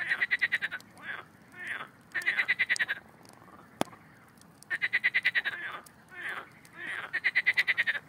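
Pond frogs croaking in a chorus: rapid pulsed rattling calls about a second long, several frogs overlapping and answering each other, with a single sharp click about four seconds in.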